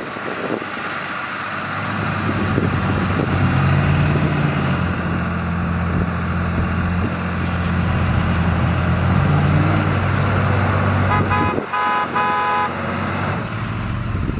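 Engines of an armored Chevrolet Suburban and a Dodge Ram 2500 Cummins diesel pickup running hard under load in a tug-of-war, with wheels spinning in the dirt. The engine note builds about two seconds in and swells up in pitch twice as the revs climb. Near the end a broken, higher-pitched tone sounds for about two seconds.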